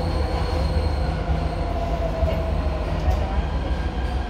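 Inside a Jakarta MRT carriage: the steady low rumble of the train running along the line, with a whining tone from the drive that dips slightly in pitch about halfway through.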